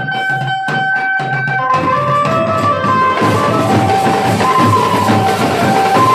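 Street band drumming: side drums struck with sticks and a large bass drum playing a fast, dense beat, with a melody of held notes moving step by step above it. The low drum sound fills in and thickens about two seconds in.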